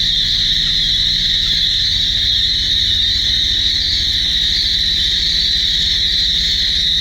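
A flock of hungry quail calling all at once, a dense, continuous high-pitched chatter, over a low steady hum.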